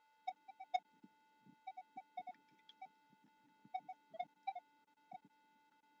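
Minelab Equinox 800 metal detector giving scattered short, low-pitched beeps as the coil is swept, over a faint steady tone.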